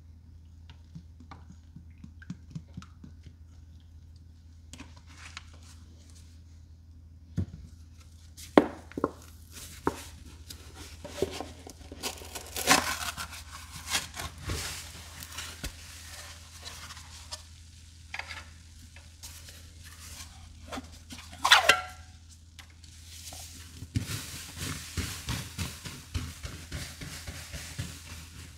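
Cleaning sponges handled and squeezed with rubber-gloved hands as Murphy's Oil Soap and Comet cleanser powder are worked in. Quiet at first, then scattered taps and squishes with a louder squelch about three quarters of the way through, and a dense run of crackling squelches near the end.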